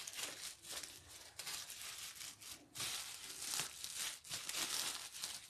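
Thin plastic bag crinkling and rustling in fits and starts as hands unwrap it from a large bottle.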